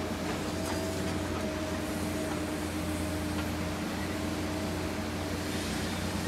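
Liebherr 954C high-reach demolition excavator running steadily, its engine holding a constant hum with a steady whine over it as the long boom moves.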